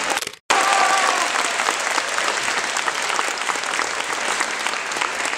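Audience applauding: dense, steady clapping that begins abruptly about half a second in, right after the routine's music cuts out.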